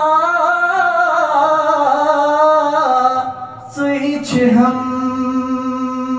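A solo voice singing a naat in a melismatic style, sliding between notes, then after a brief break about four seconds in, holding one long steady note.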